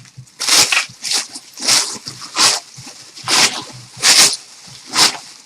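Vacuum-sealed plastic wrapping being cut and pulled open, rustling and crackling in a run of short bursts less than a second apart.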